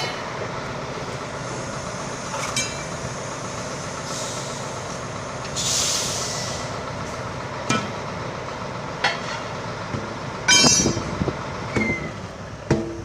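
Tyre-shop work: sharp metal knocks and clanks, the loudest a ringing cluster about ten seconds in, over a steady background noise, with a short burst of hissing air about six seconds in.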